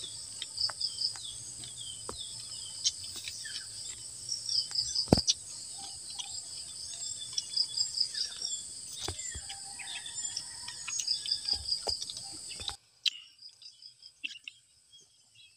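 Steady insect hum with repeated pulsed trills and short bird chirps, over sharp clicks and smacks of eating with the hands. About thirteen seconds in the insect and bird background cuts off suddenly, leaving faint, sparse mouth sounds.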